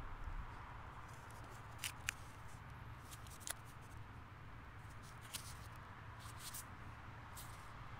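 Faint handling noise: a handful of light clicks and rustles as a hand turns a cardboard firecracker tube, over a faint steady background noise.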